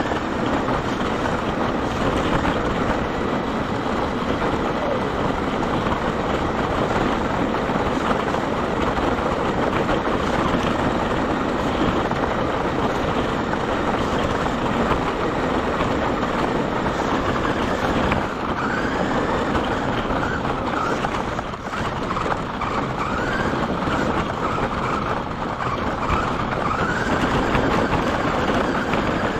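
RC car driving over a rough chip-seal path, heard from on board: a steady rush of tyre and drivetrain noise, with the motor's whine rising and falling in pitch several times in the second half as the car speeds up and eases off.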